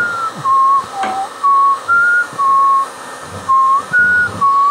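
A person whistling a tune: about nine short, clear notes that step up and down in pitch, with a brief pause about three seconds in.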